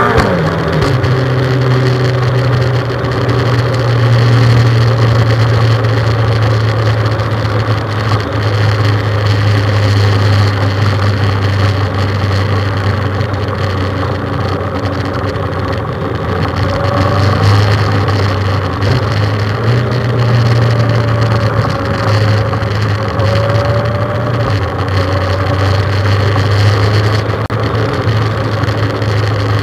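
Motorcycle engine running steadily at cruising speed, its low hum rising and falling a little in pitch, over a rush of wind and road noise.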